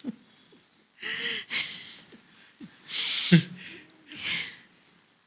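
Breathy laughter: several short bursts of airy, hissing laughs with a brief voiced chuckle or two, coming in spurts about a second apart.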